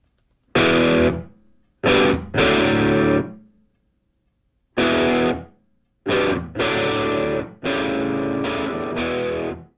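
Music: guitar chords struck one after another, each ringing briefly and then dying away, with short silences between them.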